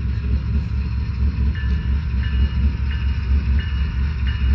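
Sound system of a Broadway Limited Imports model diesel locomotive playing its engine idling at standstill: a steady, pulsing low rumble. About a second and a half in, a faint short high tone pattern starts repeating over it.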